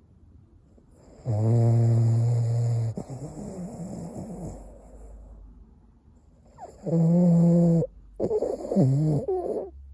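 Boston terrier snoring in deep sleep: a long, low, buzzing snore a little over a second in that tails off slowly, a second snore around seven seconds, and a shorter one wavering in pitch near the end.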